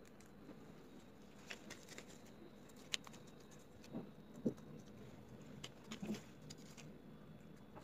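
Faint handling sounds of gloved hands shaping mashed potato onto raw minced-chicken patties: scattered soft pats and light clicks, the loudest pat about halfway through.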